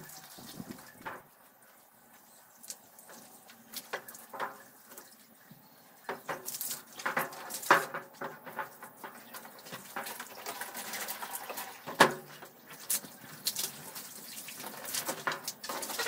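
Water from a garden hose splashing over a top-loading washing machine and onto the floor. It is faint at first and louder from about six seconds in, with scattered clicks and one sharp knock about three-quarters of the way through.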